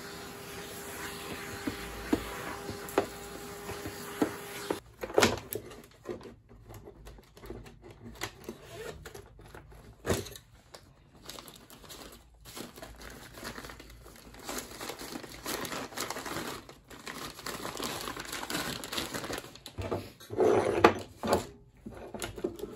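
Vacuum cleaner running with a steady hum, switched off about five seconds in. After that come clicks, knocks and crinkling of tools and plastic being handled.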